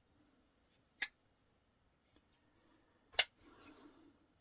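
Folding knife blade being swung open and shut on its freshly adjusted pivot, giving two sharp metallic clicks, a lighter one about a second in and a louder one a little after three seconds, as the blade snaps into place.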